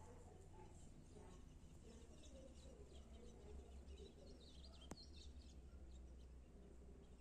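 Near silence: faint room tone with a steady low hum, a few faint high chirps, and one sharp click about five seconds in.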